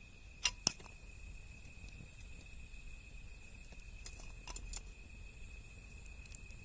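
Wood fire crackling, with two sharp pops about half a second in and a few smaller snaps around four to five seconds, over the steady high trill of insects.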